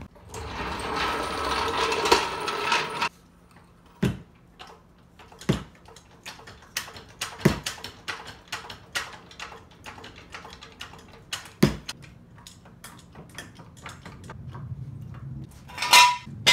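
Hydraulic floor jack dragged across a concrete floor, then its handle pumped, making a long run of metallic clicks and knocks as it raises the car off its jack stands. A loud ringing metal clank near the end.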